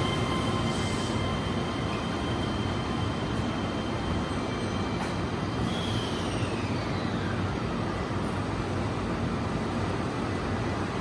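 Keihan trains at a station platform: a commuter train pulls out from the opposite track, its steady motor tones fading in the first second or so, over the even running noise of the 8000 series limited express standing at the platform. About six seconds in, a whine falls steadily in pitch for a couple of seconds.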